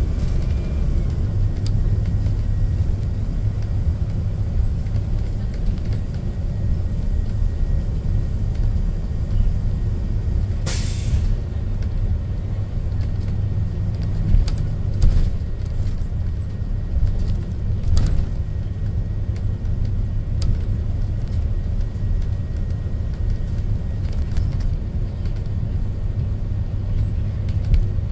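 Steady low rumble of a school bus's engine and road noise heard from inside the cab while driving, with scattered rattles and knocks and a short hiss about eleven seconds in.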